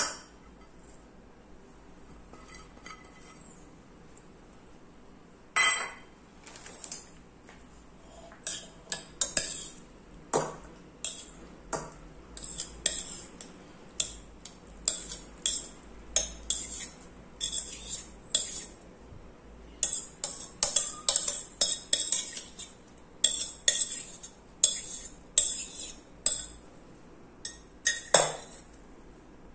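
A steel spoon scraping and clinking against steel vessels as chopped ingredients are spooned from a steel pot into a steel mixing bowl: a long run of quick scrapes and taps, with a louder ringing clank about six seconds in and another near the end.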